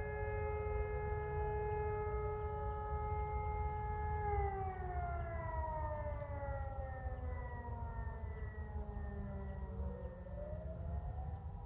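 Civil defense sirens sounding in a monthly siren test. A steady siren tone holds, then about four seconds in winds down, its pitch falling slowly. Near the end another siren starts up with a rising tone, all over a low rumble.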